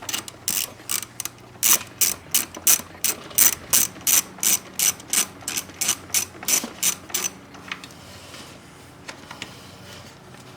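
Hand ratchet wrench clicking in quick back-and-forth strokes, about three a second, loosening a fastener on the ATV's air intake; the strokes stop about seven seconds in.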